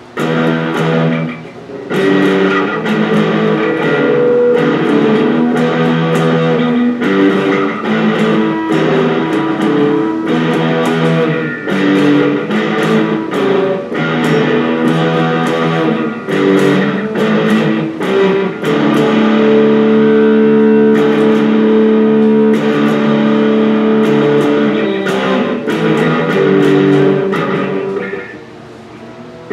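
Electric guitar with newly fitted pickups played as a sound check: single picked notes and chords, with one chord left ringing for several seconds in the second half and a short pause near the end.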